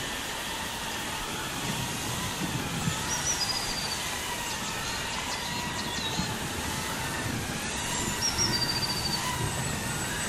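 A small indoor drone's propellers whirring steadily, with a faint wavering hum. A few short high chirps come through about three seconds in and again about eight seconds in.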